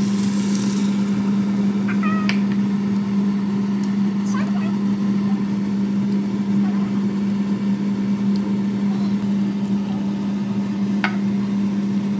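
Steady low mechanical hum with a rushing noise over it, like a motor or fan running; faint distant voices and a sharp click about eleven seconds in.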